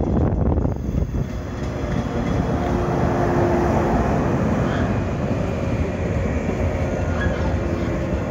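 JR West 113-series electric multiple unit running past close by as it pulls into the station to stop, a steady rumble of wheels on rail.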